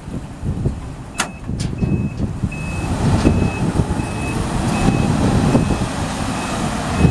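Truck back-up alarm beeping at an even pace, about three beeps every two seconds, over the low running rumble of a 2003 GMC C7500's 8.1-litre V8 gas engine, with wind on the microphone. Two sharp clicks come just before the beeping starts.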